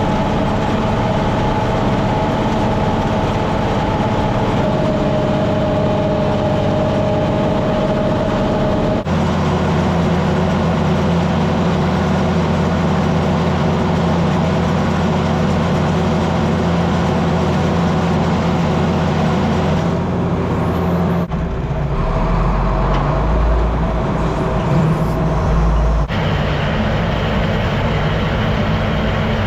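Farm tractor engine running steadily, its sound changing abruptly about nine seconds in and twice more near the end.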